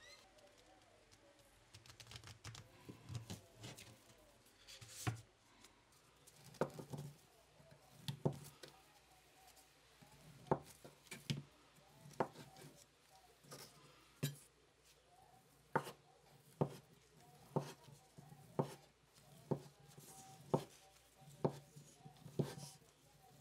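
A large knife chopping a block of processed meat on a wooden cutting board. The blade knocks sharply against the board about once a second, with softer, irregular slicing sounds in the first few seconds.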